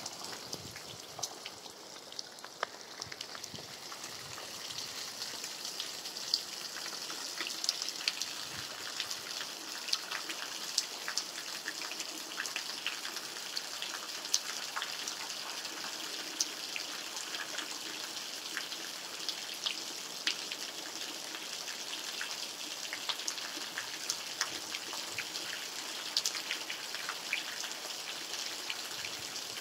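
Steady rain: a fine hiss with many separate drops landing in sharp ticks, slightly softer for the first few seconds.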